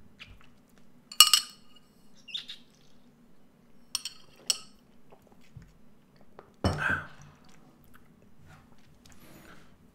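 A clear drinking glass being handled: a sharp clink with a brief ring about a second in, then two lighter clinks around four seconds in. A short, louder burst follows near seven seconds in.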